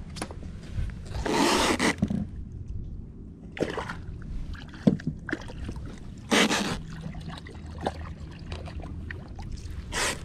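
Water splashing beside a small boat in four short bursts as a snook is let go over the side and hands are dipped in the water.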